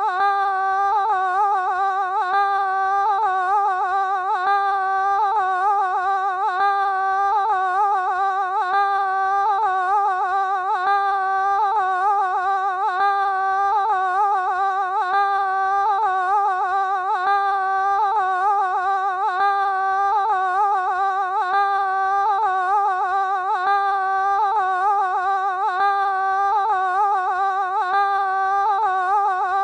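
Background music: one long held note that wavers slightly in pitch, with a faint soft tick about every two seconds.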